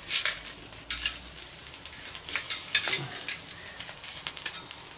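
Porterhouse steak sizzling on the grate of a swinging grill over a charcoal and wood fire, with irregular crackles and pops and the clicks of steel tongs as the steak is lifted and turned.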